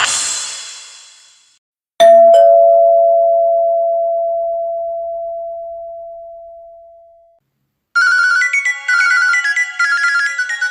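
Nokia 1110 ringtones played back as MIDI synth music. The last notes of one tune fade out. About two seconds in, a two-note descending chime like a doorbell ding-dong rings and slowly dies away over about five seconds. Near the end, a new quick, high-pitched ringtone melody begins.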